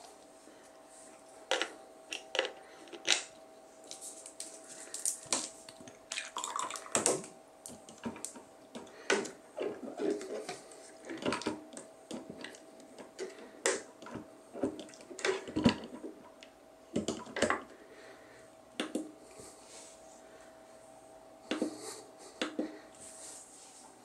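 Plastic clicks and knocks of a water bottle and its screw-on adapter cap being handled and fitted upside down into a steam humidifier's reservoir, followed by irregular watery gurgles and plops as the inverted bottle feeds water into the tank.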